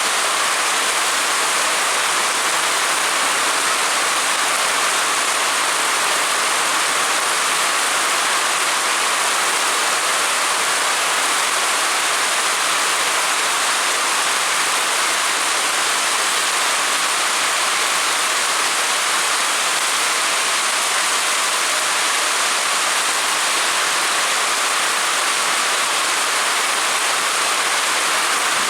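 Heavy monsoon rain falling, a loud steady hiss with no change throughout.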